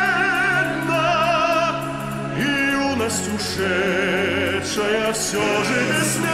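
Tenor singing long held notes with wide vibrato over backing music with steady low sustained notes.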